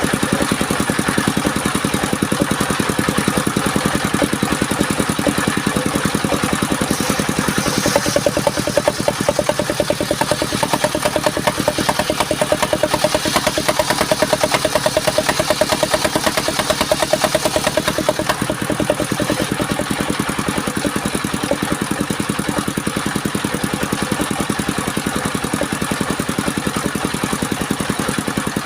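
Engine of a mobile circular sawmill running steadily with an even throb. A higher whine and hiss join in from about eight to eighteen seconds in, then fade.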